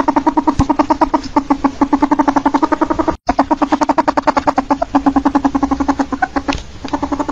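Ferret calling: a rapid run of pitched clucks at about ten a second, holding a steady pitch, broken by a brief dropout about three seconds in.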